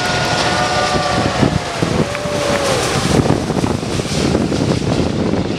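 Airbus A380's four Rolls-Royce Trent 900 engines running at approach power as the jet passes low on landing, its engine whine sliding down in pitch as it goes by, over a deep rumble and wind on the microphone.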